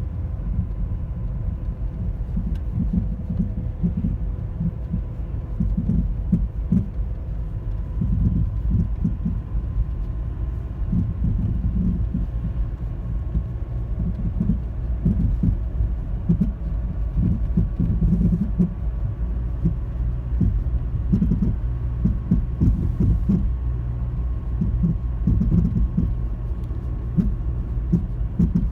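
2010 Toyota Corolla LE giving off an irregular low thumping, popping noise over a steady rumble, with a faint steady hum above it. The cause is unknown to the owner.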